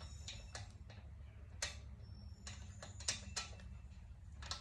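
Scattered light metallic clicks at uneven intervals as the wheel's lug bolts are backed out by hand with a socket wrench.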